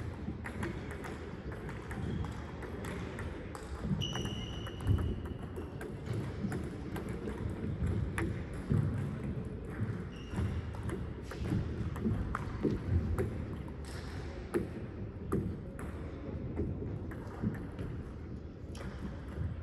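Table tennis ball being played: a string of sharp, irregularly spaced clicks as the ball strikes paddles and table. Two or three brief high squeaks come through, the first around four seconds in.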